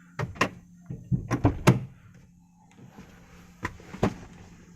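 Wagon R rear door's handle and latch being worked: a series of sharp mechanical clicks, two early, a quick cluster around a second and a half in, and two more near the end.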